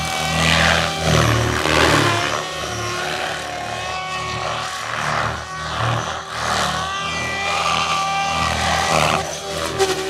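Electric radio-controlled 3D aerobatic helicopter flying manoeuvres: the rotor blades whoosh in repeated surges about every second or so, over a motor whine that keeps shifting in pitch.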